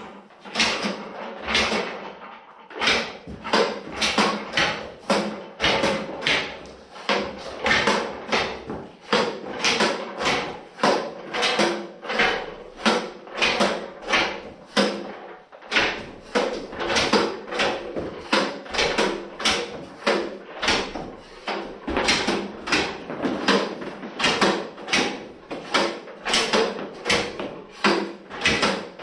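Sharp clacks repeating evenly, about two a second, with no let-up.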